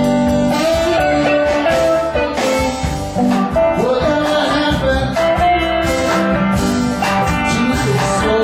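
Live band playing amplified music with electric guitars, keyboard and drums.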